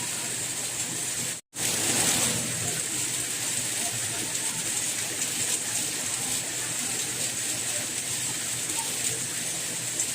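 Steady rain, an even hiss of falling water, which cuts out for an instant about a second and a half in and then resumes.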